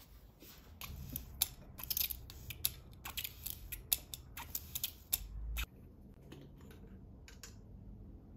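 Metal pump-top plant mister being pumped over and over, a quick run of clicks and short squirts, with little water coming out. It stops with a low bump about five and a half seconds in.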